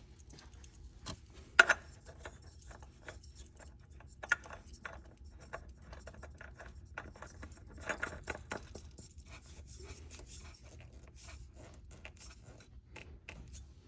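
Scraping and rubbing from handling a new oil filter as it is fitted by hand, with scattered light clicks. There is a sharp knock about one and a half seconds in, a smaller one about four seconds in, and a short stretch of rustling near eight seconds.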